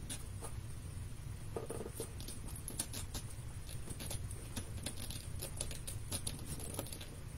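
Fingers pressing and handling a paper-covered chipboard box: faint, scattered paper rustles and light taps over a low steady hum.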